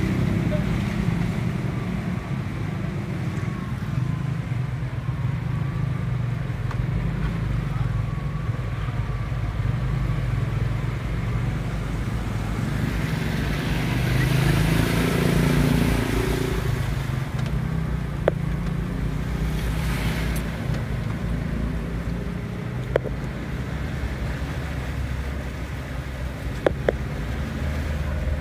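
Car engine running steadily at low speed while the car drives through floodwater, heard from inside the cabin, with a louder wash of noise about halfway through and a few sharp clicks near the end.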